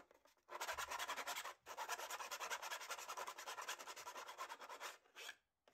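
7/32-inch round chainsaw file rasping back and forth through a spar channel, cleaning it out for the carbon spar. Rapid strokes start about half a second in, pause briefly after about a second and a half, stop about five seconds in, and one short rasp follows.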